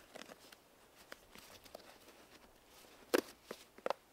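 Scattered light clicks and knocks: a few small ones early, the sharpest about three seconds in, and a quick pair near the end.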